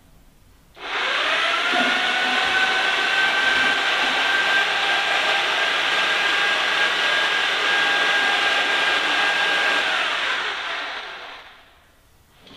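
Handheld electric mortar mixer from Harbor Freight switched on, its whine rising as it spins up, then running steadily with its paddle churning water and cotton pulp in a plastic bucket to break the fibres up. Near the end it is switched off and the whine falls away as it winds down.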